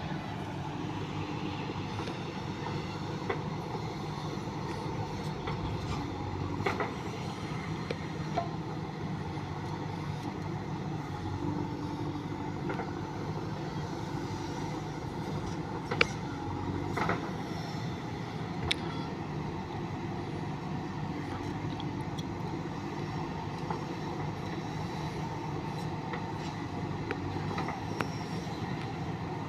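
JCB 3DX backhoe loader's diesel engine running steadily under work, with a few sharp knocks; the loudest comes about sixteen seconds in.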